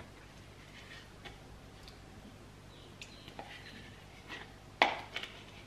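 A spatula scraping sour cream out of a tub into a stainless steel mixing bowl: soft scrapes and small clicks over a faint steady low hum, with one sharp knock about five seconds in.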